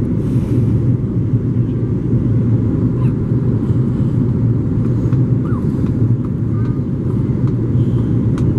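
Steady low drone of an Airbus A330-300 airliner's cabin during descent on approach: engine and airflow noise heard from a window seat, strongest as a low hum.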